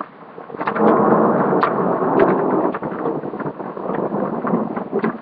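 Thunderstorm: rain with a roll of thunder that swells about a second in and holds. Sharp ticks are scattered through it.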